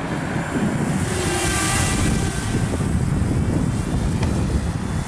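Wind buffeting the microphone, with the high whine of a Walkera F210 racing quadcopter's motors and propellers swelling briefly about a second and a half in.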